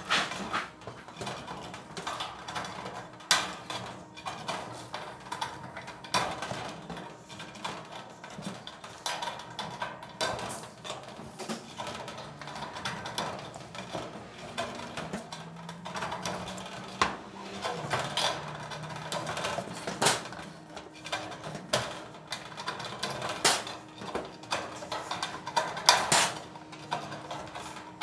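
Hand tin snips cutting Colorbond steel barge capping flashing, notching it around the ribs of Klip Lok roof sheets: a string of irregular sharp snips and clicks, with the thin sheet steel rattling and clanking as it is handled.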